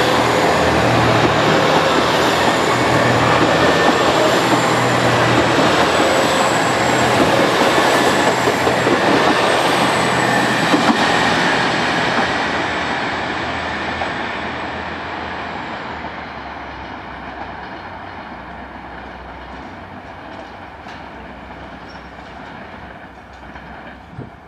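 Limited express train running away along the track. Its running noise is loud at first and fades steadily from about halfway through as it moves off into the distance.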